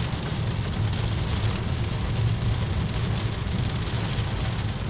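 Storm rain hitting a car's windscreen and roof, heard from inside the cabin over the steady low rumble of the car driving on the wet road.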